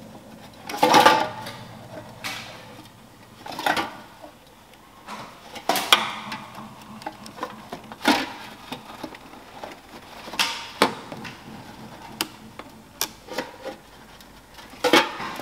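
Scattered, irregular knocks, clinks and crinkles of empty aluminium drink cans and plastic bottles, a dozen or so in all, spaced unevenly a second or two apart and loudest about a second in.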